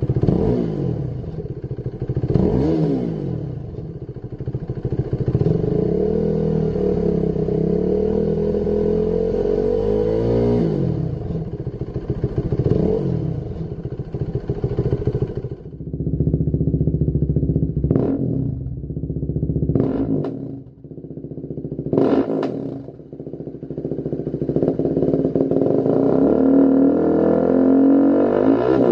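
KTM 390 Duke's single-cylinder engine running through a Lextek XP10 aftermarket silencer, stationary and revved again and again. First come several slow rises and falls in engine speed. Past the middle there are three short, sharp throttle blips, and near the end a long climb.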